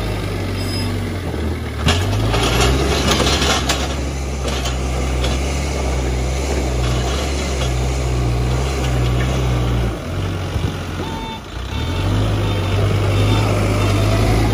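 Case backhoe loader's diesel engine running and revving up about two seconds in, with a hissing, clattering noise over the next two seconds; the engine note drops around ten seconds in and picks up again shortly after.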